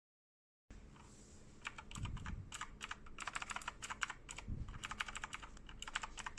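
Fast typing on a computer keyboard fitted with novelty keycaps: quick bursts of key clicks that begin about a second and a half in, after a moment of dead silence.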